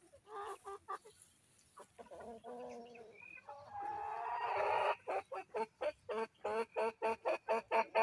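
Free-range Sasso and improved kienyeji chickens clucking. About four seconds in, one bird gives a long drawn-out call, then breaks into a fast, loud run of clucks, about four or five a second.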